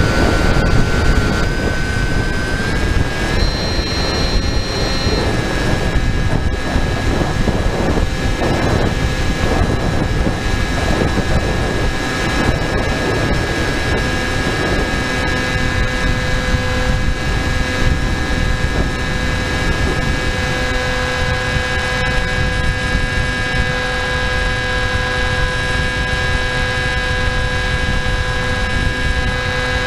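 Onboard audio of an FPV model aircraft in flight: the motor and propeller give a steady whine with a stack of overtones, rising in pitch about three seconds in and then holding steady, over heavy rushing air noise.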